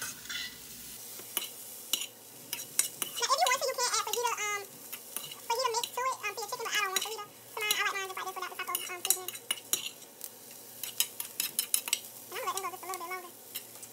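A metal spoon clinks and scrapes against a stainless steel skillet as sliced onions and green peppers are stirred while they sauté, over a light sizzle. A person's voice comes and goes over it.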